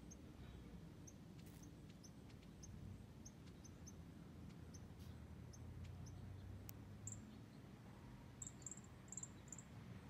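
Faint, short, high-pitched chirps from a small animal, repeated at irregular intervals, becoming a little louder and more bunched together near the end, over a low steady hum.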